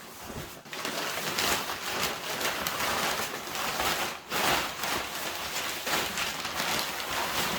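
Cardboard box and packing material rustling and crinkling as a large delivery box is opened and rummaged through, with a few louder crackles.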